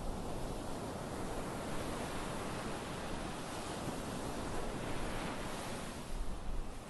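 Small waves breaking and washing up a beach: a steady rush of surf that swells and eases, with some wind on the microphone.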